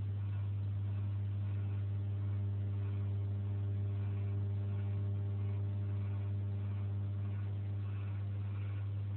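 A steady low electrical hum with a stack of overtones, unchanging in pitch and level.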